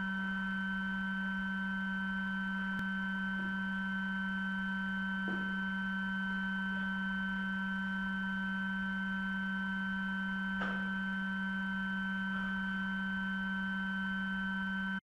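Steady electrical hum made of several fixed tones at once, a low hum the strongest with thinner whines above it, with a couple of faint knocks in the room.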